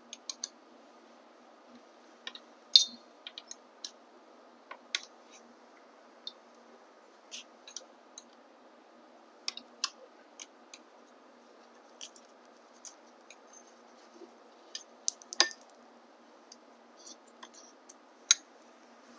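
Scattered metallic clicks and clinks of a socket wrench working the middle mounting bolt of a Bafang M600 mid-drive motor in an e-bike frame, at irregular intervals with a louder clink about three seconds in and another about fifteen seconds in.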